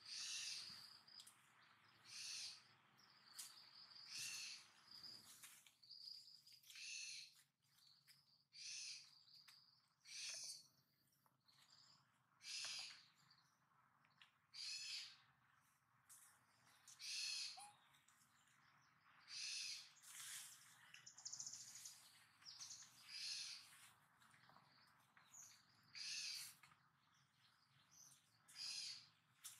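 A bird's short, high calls repeating every one to two seconds, over faint forest background.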